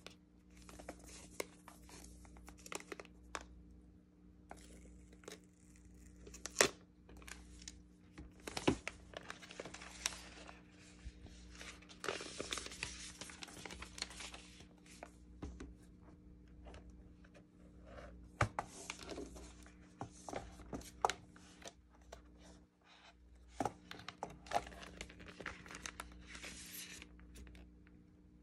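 Packaging being handled: a paper wrap rustling and crinkling as it is pulled off a keyboard case, with irregular sharp clicks and knocks from the cardboard box and case, over a faint steady hum.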